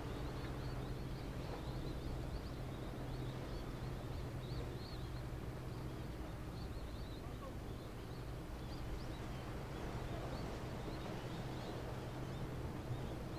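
Steady low drone from a large passenger ferry's engines, a few fixed low tones held throughout. Faint, short high-pitched chirps come and go over it.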